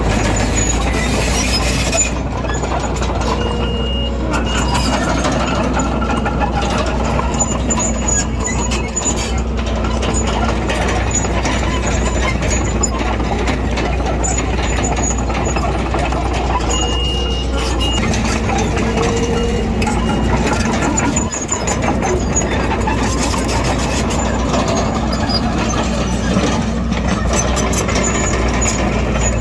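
Diesel engines of a bulldozer and dump trucks working, a steady low engine drone under dense mechanical noise. A short high beep sounds twice, a few seconds in and again about halfway through.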